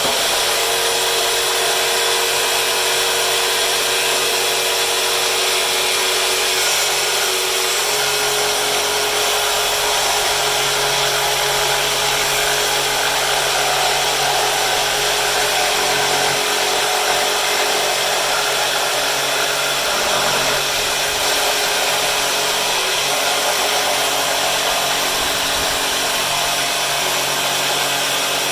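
Electric jigsaw mounted upside down as a makeshift bandsaw, running steadily while cutting a curved piece of wood; its pitch drops slightly about eight seconds in.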